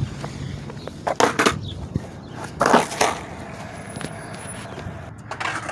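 Skateboard wheels rolling over concrete with a steady rumble. Sharp knocks of the board hitting the ground come twice about a second in and twice more around three seconds.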